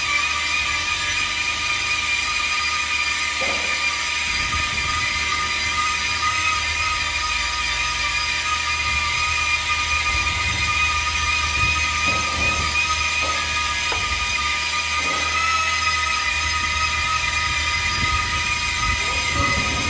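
A tool or machine running continuously with a steady, high-pitched whine over a low rumble.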